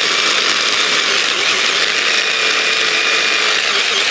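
Stick blender with a chopper bowl running steadily, grinding chunks of hard cured Parmesan into crumbs.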